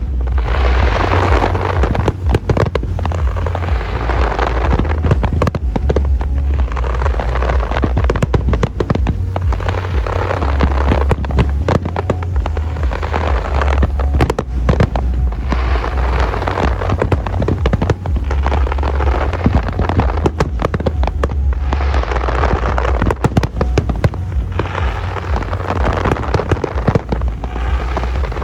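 Aerial fireworks display: a dense, unbroken barrage of bangs and crackling over a heavy low rumble.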